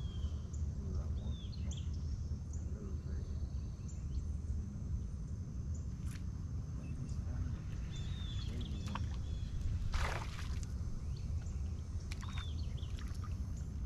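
Outdoor ambience: birds chirping now and then over a steady low rumble, with a thin steady high-pitched tone behind, and a brief rushing noise about ten seconds in.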